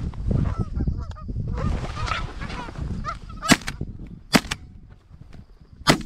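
Geese honking, then three shotgun shots: the first about halfway through, the second a second later, the third near the end.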